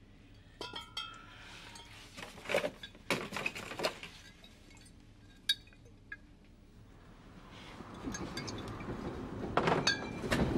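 Full glass spirit bottles clinking against each other as they are lifted and handled, a handful of sharp, short clinks with a brief ring. Near the end a low, rising rumbling noise grows louder.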